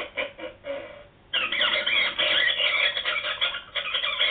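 Battery-operated rat-eating ghoul prop's small speaker playing a recorded rat's piercing squeals, which start suddenly about a second and a half in and run on densely. Before them, the ghoul's recorded voice fades out into a short lull.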